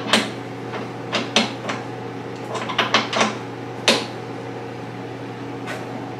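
Scattered clicks and knocks of the welding leads' connectors being undone and moved on a Vulcan OmniPro 220 MIG welder, as the polarity is swapped from flux core to gas, with a small cluster of quick clicks near the middle. A steady low hum runs underneath.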